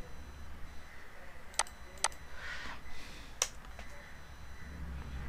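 A few single computer keyboard key taps, three sharp clicks spaced unevenly over about two seconds, over a low steady hum.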